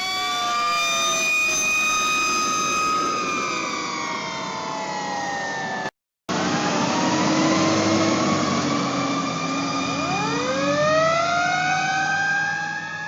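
Fire truck sirens wailing, several tones sliding slowly down in pitch. After a sudden cut about six seconds in, the sirens rise in pitch again toward the end, over a low engine hum.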